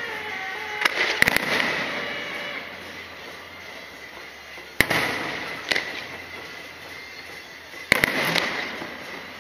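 Aerial fireworks shells bursting overhead: loud bangs, a double about a second in, then single ones near the middle and near the end. Each bang is followed by crackling that fades away over a couple of seconds.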